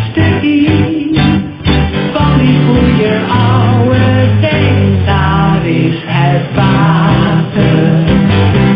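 Music: a song sung to guitar accompaniment.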